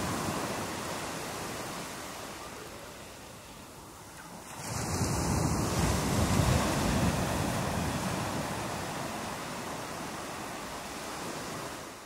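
Ocean surf: waves breaking and washing in a continuous rush. A fresh wave swells up about four and a half seconds in and then slowly subsides.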